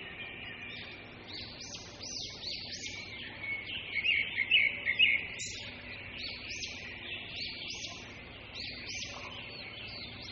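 Wild birds chirping, with many short arching notes repeating throughout and the loudest calls about four to five seconds in, over a steady high-pitched background chorus.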